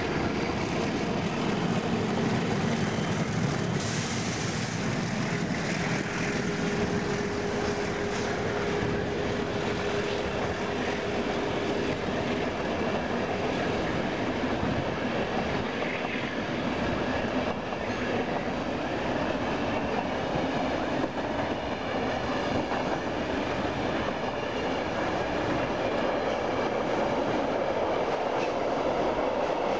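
A pair of MLW diesel locomotives runs past, followed by a long train of passenger coaches and freight wagons whose wheels keep up a steady clickety-clack over the rail joints. A thin steady whine, typical of wheel squeal, holds for several seconds in the first half.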